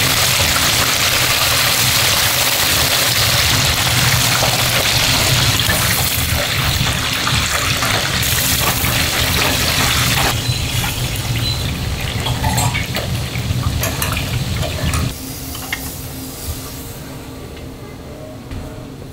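Commercial kitchen at work: a loud steady hiss, like a running tap or food cooking, that drops sharply about ten seconds in and again about fifteen seconds in, with light clinks of utensils and a low steady hum of kitchen equipment underneath.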